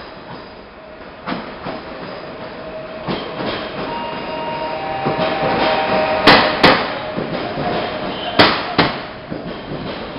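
Passenger train coaches rolling past close by, the rolling noise building as the train comes alongside. Pairs of loud clacks ring out as each bogie's wheels pass over rail joints, the loudest about six seconds in, over a thin steady squeal.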